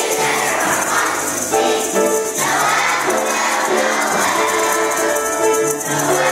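Children's choir singing a melody in held notes, accompanied by a shaker rattling along in a steady beat.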